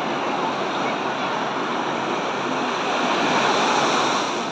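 Surf washing in over the shallows of a sandy beach: a steady rush of water that swells a little about three seconds in.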